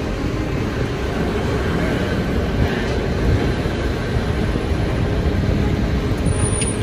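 Steady low city-street rumble, with articulated city buses idling at a stop close by.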